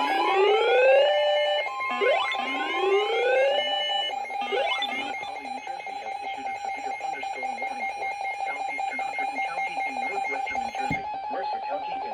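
Emergency alert tones: three rising sweeps about two seconds apart over a steady buzzing tone that holds throughout.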